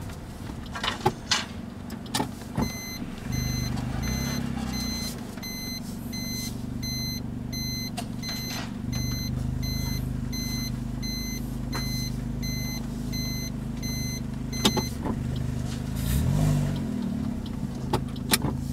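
Car engine running at low speed while reversing into a parking space, with the car's reverse-gear warning beeping evenly, about three short beeps a second, from about three seconds in until about fifteen seconds. A few sharp clicks and knocks near the start and end.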